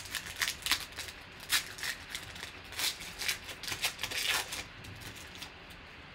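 Foil wrapper of a Panini Optic basketball card pack crinkling and tearing as it is pulled open by hand: a run of sharp crackles that dies away about four and a half seconds in.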